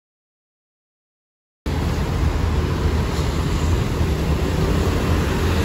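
Silence for about a second and a half, then city street noise cuts in suddenly: a steady low rumble of road traffic.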